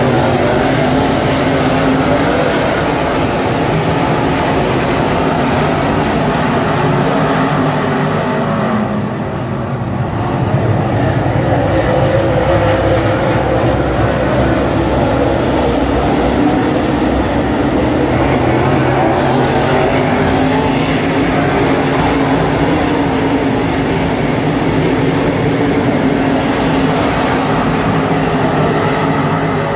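Dirt super late model race cars running at speed around the track, a pack of several loud V8 engines together. It dips briefly about nine seconds in, then swells again.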